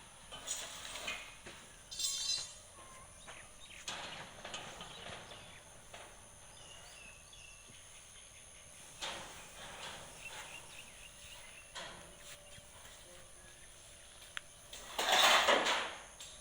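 Goats moving and calling, with scattered rustles and knocks, a quick run of clicks about two seconds in, and one louder burst of noise near the end.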